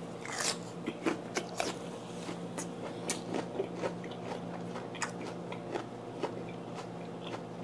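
Close-up chewing of a mouthful of vinegar-cured mackerel wrapped in raw onion, with crisp crunches and small wet clicks every fraction of a second.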